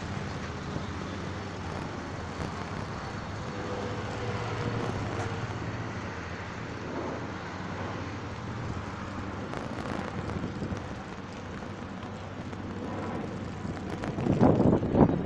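Road traffic noise: the steady low hum of cars idling and moving in a queue at a traffic light, heard from a moving bicycle. Near the end, wind buffets the microphone in louder gusts.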